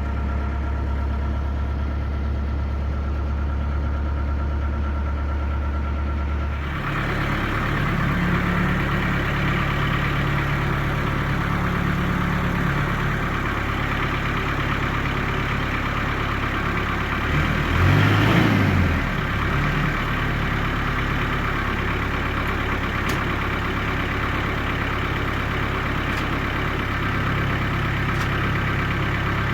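A motor vehicle engine running steadily. Its note changes about seven seconds in, and it rises and falls briefly around eighteen seconds in.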